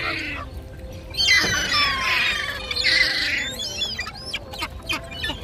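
Birds squawking and chirping, several short, harsh calls about a second apart, with many quick chirps in between.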